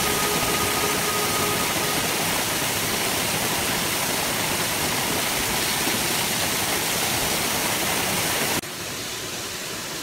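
Waterfall pouring into a rock pool: a steady, loud rush of water. About eight and a half seconds in it drops suddenly to a quieter, more distant rush.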